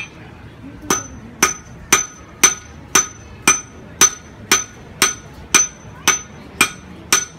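Blacksmith's hand hammer striking hot iron on an anvil, a steady rhythm of about two blows a second, each with a short metallic ring. The blows start about a second in.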